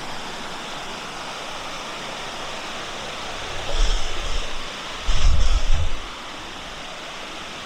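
Creek water rushing steadily, with two loud, low rumbling bursts about four and five seconds in, each lasting about a second.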